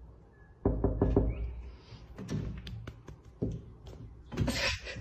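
Knocking and tapping on a window pane: a quick run of knocks about a second in, then scattered single knocks, and a short scratchy noise near the end.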